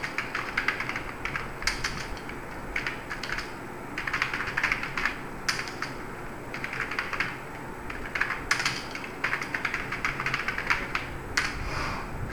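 Computer keyboard typing in short runs of rapid keystrokes with brief pauses between them.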